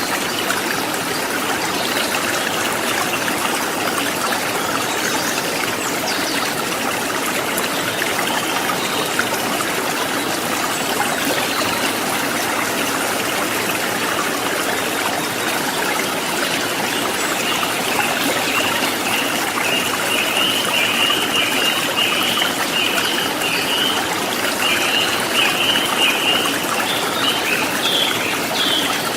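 River water running steadily over rocks, a continuous rushing and babbling. From a little past halfway, a rapid series of short high chirps sounds over the water.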